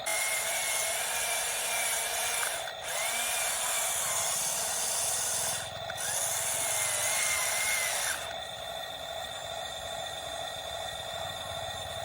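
Small electric motors and gearboxes of a remote-control construction model whirring. They run in three stretches of about three seconds with brief pauses between, then drop to a quieter steady whir about eight seconds in.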